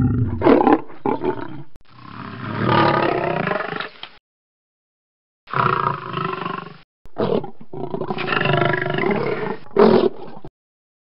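Lion roaring: a series of deep, drawn-out roaring calls broken by short grunts, with a pause of about a second midway.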